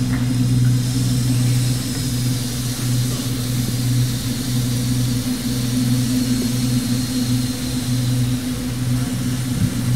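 A steady, low synthesizer drone held without a break, a sustained pad opening the arrangement, with faint high tones above it.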